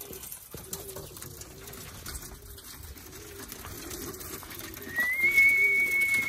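Domestic pigeons cooing softly in the loft. About five seconds in, a long, steady, high whistled note starts and is the loudest sound.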